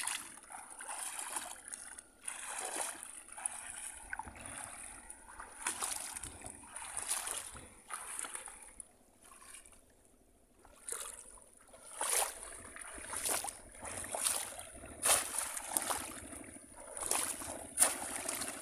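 Legs wading through shallow floodwater, splashing and sloshing with each stride about once a second, with a short lull partway through. Near the end there are splashes as bamboo cone fish traps are pushed down into the water. A steady high hiss runs underneath.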